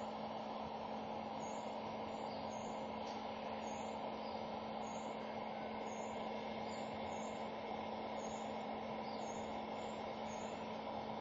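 A steady hum with a constant hiss behind it, unchanging throughout.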